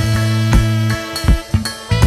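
Upbeat instrumental background music with held bass notes and a drum beat.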